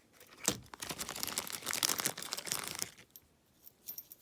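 Packaging crinkling and tearing as it is handled and opened, a dense crackle lasting about two and a half seconds, then a few faint light clicks near the end.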